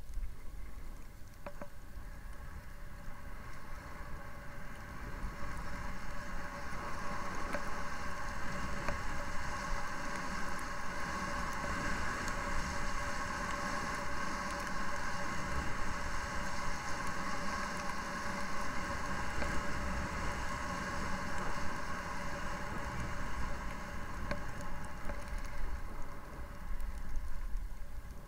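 Skis running over packed snow with a steady scraping hiss, with wind rumbling on the microphone; it builds over the first few seconds as the skier gathers speed and eases slightly near the end.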